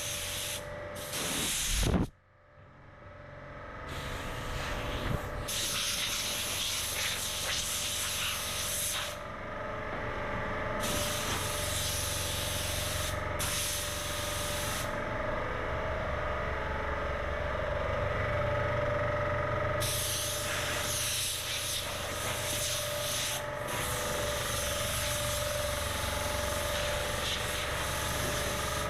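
Abrasive paper sanding a truck's body panels, heard as a run of short clips that start and stop abruptly, over a steady machine hum. About two seconds in there is a sharp loud knock.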